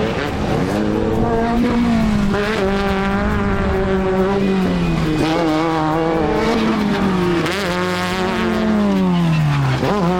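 Off-road race vehicle's engine running hard. Its pitch rises and falls again and again as the driver accelerates and lifts off, with a sudden drop and recovery near the end.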